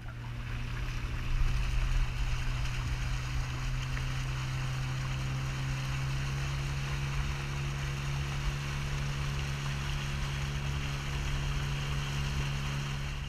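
Small outboard motor pushing an aluminum boat along at a steady speed, with water rushing past the hull.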